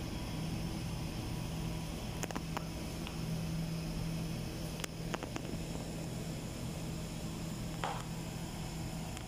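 Steady low hum of cooling machinery, with a few faint clicks scattered through the middle.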